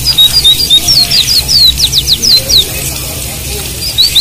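White-eyes (pleci, Zosterops) singing: quick chirps and steep down-slurred whistled notes, a pause of about a second and a half, then a fast run of short rising notes starting near the end, over a steady low hum.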